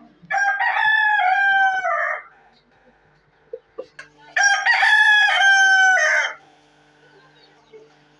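Rooster crowing twice, each crow a loud, drawn-out call of about two seconds, the second starting about four seconds after the first.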